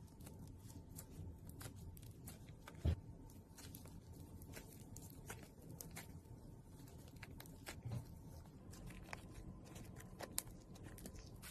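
Slime being handled and pressed: scattered small clicks and sticky pops, with one soft low thump about three seconds in.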